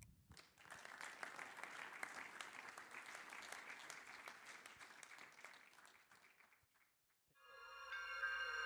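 An audience applauding, the clapping fading away after about six seconds; after a brief silence, music begins near the end.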